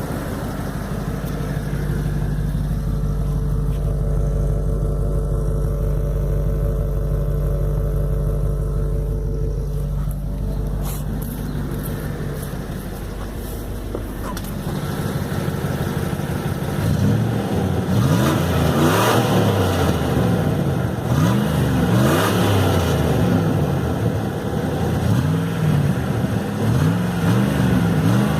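Cherokee 5.2-litre V8 exhaust through a muffler with a strong rumble: running steadily for about the first half, then revved up and down repeatedly.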